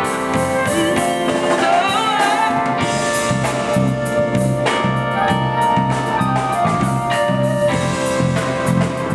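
Zydeco band playing live, a dance number with a steady beat and a repeating bass line.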